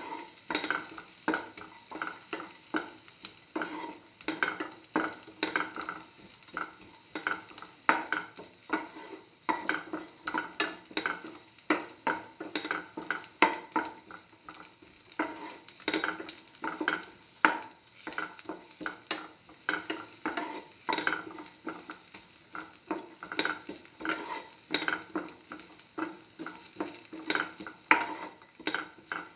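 Shallots and garlic being stirred in a hot metal pan: repeated scrapes of the stirring utensil against the pan, roughly one to two a second, over the steady sizzle of the pieces frying in oil.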